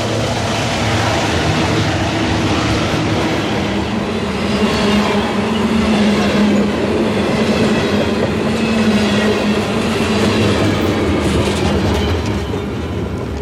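Covered hopper cars of a grain train rolling past close by, with a steady rumble and the clickety-clack of wheels over rail joints. The sound eases a little near the end as the last cars go by.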